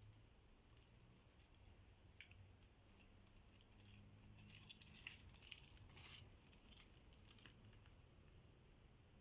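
Near silence: a faint steady high insect drone, with a few faint scratches and rustles about five to six seconds in.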